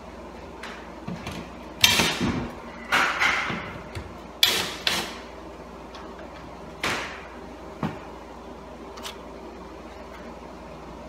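Cordless drill-driver run in several short bursts, driving the screws of a smoke detector mounting plate, with a few lighter clicks near the end.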